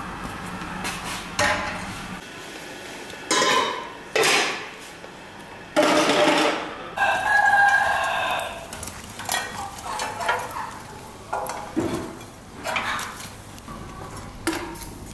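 Clatter of metal pots and utensils, a few sharp knocks that ring briefly, with a rooster crowing about halfway through.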